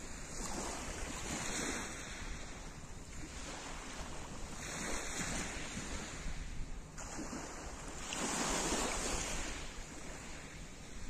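Small waves breaking and washing up a pebble beach, each swelling and fading every two to three seconds.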